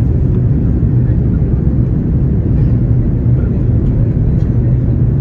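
Airliner cabin noise heard from a window seat: the steady low drone of the jet engines and airflow, with the plane circling on approach.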